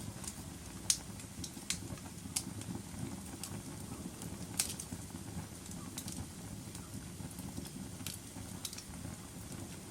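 Wood fire burning in a fireplace: a steady low rumble of flames with irregular sharp crackles and pops, the loudest about a second in and another about four and a half seconds in.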